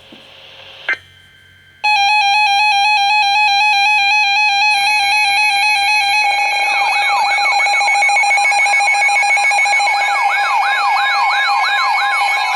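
Loud electronic emergency-alert alarm. A steady, fast-pulsing alarm tone starts about two seconds in, a second tone joins near five seconds, and from about six seconds repeated siren-like rising and falling sweeps are layered on top, about two a second.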